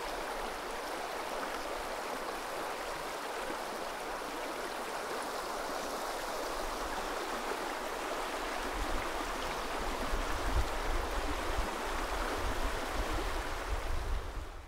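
River water rushing steadily, a constant even noise. A low rumble comes and goes under it from about halfway through.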